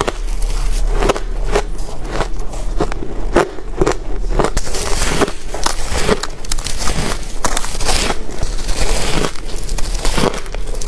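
Biting into and chewing a clump of powdery shaved ice: a quick, irregular run of crunches, a few every second, with a faint steady hum underneath.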